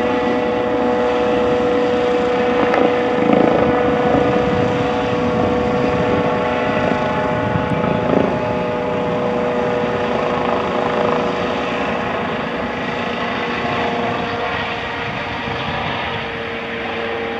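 Airbus H135 helicopter flying away: rotor and turbine noise with a steady whine, growing gradually quieter as it moves off.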